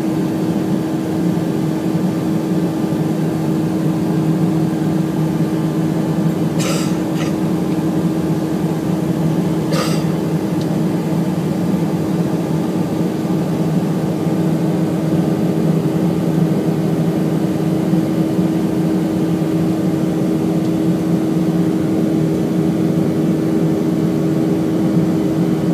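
Steady airliner cabin noise during the climb after takeoff: engine drone and rushing air with a constant low hum. A few brief clicks come about seven and ten seconds in.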